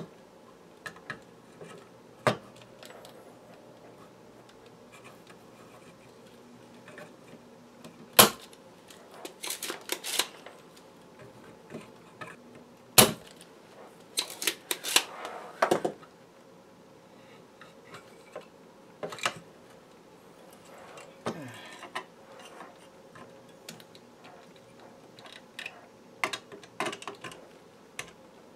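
Desoldering: a spring-loaded solder sucker snapping sharply as its plunger is released, mixed with smaller clicks and taps of tools on the radio panel. The two loudest snaps come about a third and halfway through.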